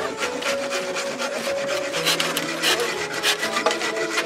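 Hand saw cutting through bamboo: a run of short rasping strokes.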